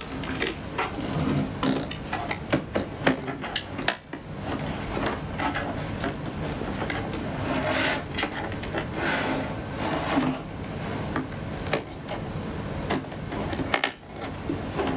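Hands working on an oscilloscope's casing and parts: irregular clicks, taps and short scrapes of plastic and metal pieces being handled and pried loose.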